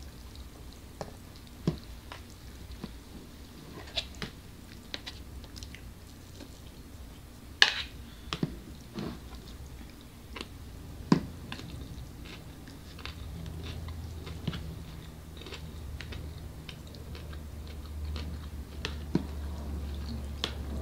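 People eating takeout noodles and dumplings: chewing and biting, with scattered clicks and taps of forks against plastic bowls and containers. Two sharper clacks stand out, one a little before halfway and another a few seconds later.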